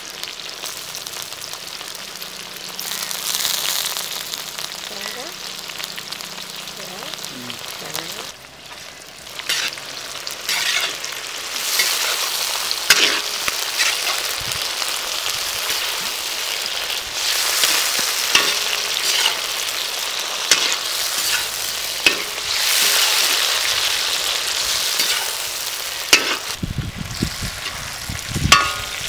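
Sliced onions, tomatoes and green chillies sizzling in hot oil in a large iron kadai, stirred with a metal spatula that scrapes and knocks against the pan. A low rumble comes in near the end.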